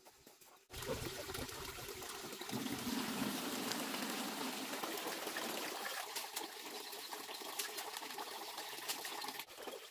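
Dark red dye water poured in a steady stream from a metal pot into a plastic basin, splashing into the liquid already there. It starts suddenly about a second in and stops abruptly shortly before the end.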